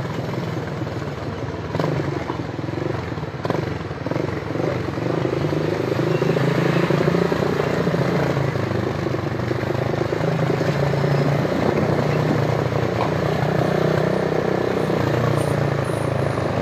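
Motor vehicle engines running in street traffic. A steady low hum is heard throughout, with pitch that wavers a little.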